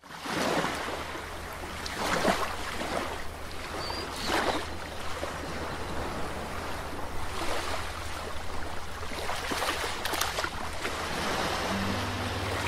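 Shallow sea water washing onto a sandy beach, swelling in surges every two or three seconds over a steady low rumble. A low musical note comes in near the end.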